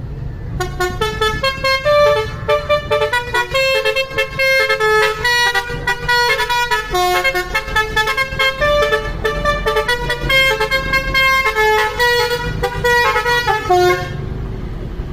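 Indonesian bus 'telolet' horn, a set of multi-tone air horns, playing a fast tune of short notes that changes pitch every fraction of a second. It starts about half a second in and stops about a second before the end, with a low rumble underneath that carries on.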